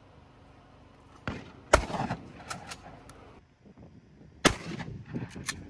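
Gunshots: two sharp, loud shots about three seconds apart, with a weaker pop just before the first and a few light clicks after each shot.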